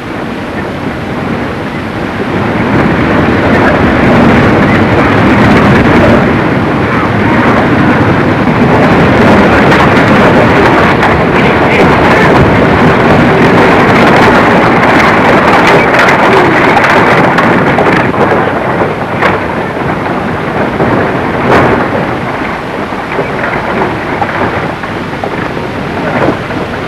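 A large body of galloping horses and rolling wagons rumbling in together: a dense, continuous clatter of hooves and wheels that builds over the first few seconds and stays loud, easing slightly near the end.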